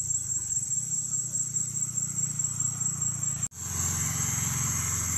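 Steady high-pitched drone of an insect chorus, cricket-like, over a low hum of a distant motor vehicle. The sound cuts out for an instant about three and a half seconds in, then carries on.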